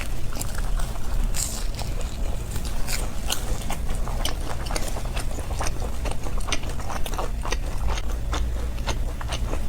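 Close-up biting and chewing of a fried beef-and-glass-noodle pastry (niurou hezi), with many short crunchy clicks from the fried crust.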